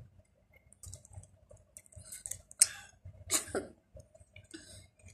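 Mouth and throat sounds of someone drinking soft drink from a bottle: swallows and small wet clicks in a few short, separate bursts, the sharpest a click about two and a half seconds in.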